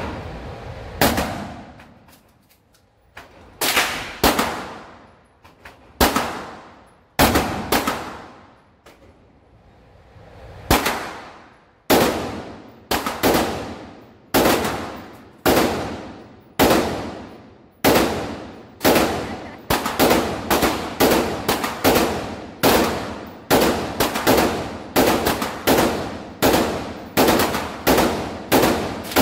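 Handgun shots echoing in an indoor shooting range, each crack followed by a short ringing tail. They are spaced a second or more apart at first, then come steadily at about two a second through the second half.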